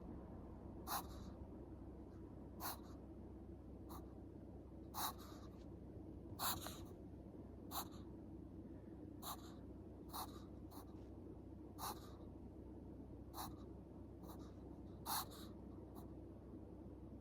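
Chihuahua reverse sneezing: short, sharp grunting intakes of breath through the nose, repeating about once every second or so. It is a mild bout of the spasm to which Chihuahuas are prone.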